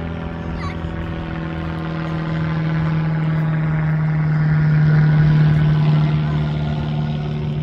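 Small single-engine propeller airplane passing overhead, its engine a steady drone that grows louder to a peak about five seconds in, then eases off slightly.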